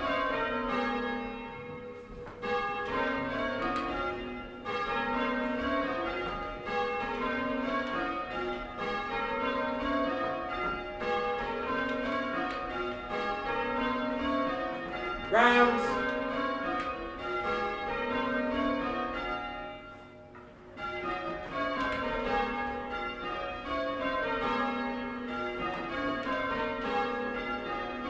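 A ring of six church bells, cast in 1720 by Abraham Rudhall with a tenor of about 10 cwt in A-flat, rung full circle in back rounds and then in rounds. A loud shouted call of "Rounds" comes about halfway through.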